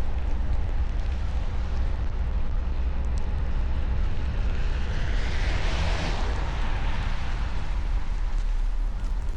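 Car driving through snow: a steady low rumble of engine and road noise. About halfway through, a hissing rush swells and then fades.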